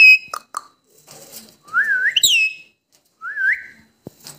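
Rose-ringed parakeet giving three whistled calls, each a quick glide in pitch: a short one at the start, a longer rising and swooping one about two seconds in, and a shorter rising one near the end. Light clicks fall between the calls.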